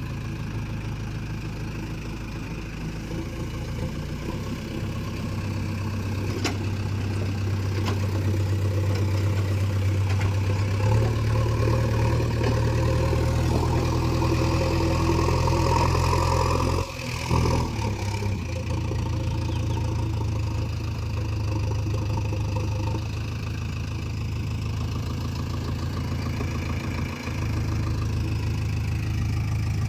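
Heavy diesel engine running steadily. It speeds up and gets louder about a third of the way in, drops out briefly a little past halfway, then settles back to a steady run.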